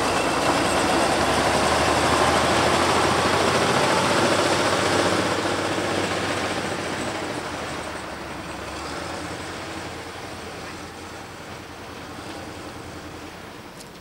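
Small diesel locomotive running, a steady engine rumble with a low hum beneath it, loud at first and then fading over the second half.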